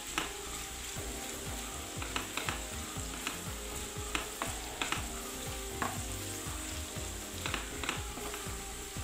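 Sliced onions sizzling in hot ghee and coconut oil in a frying pan, stirred with a wooden spatula that knocks and scrapes against the pan at irregular moments.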